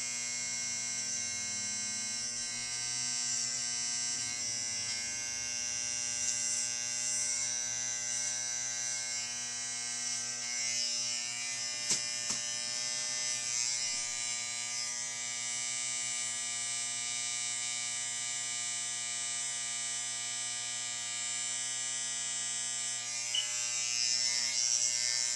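Electric hair clippers buzzing steadily while cutting hair, run without a guard.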